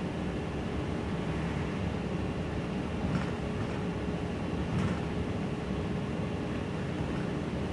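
Inside a Gillig low-floor city bus under way: a steady low engine and road rumble with a faint steady whine. Two short knocks come about three and five seconds in.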